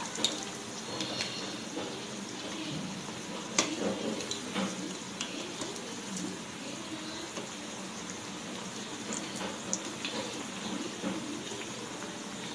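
Vadai deep-frying in hot oil in a steel kadai: a steady bubbling sizzle, with a few light clinks of a steel spatula against the pan as they are turned, the sharpest about three and a half seconds in.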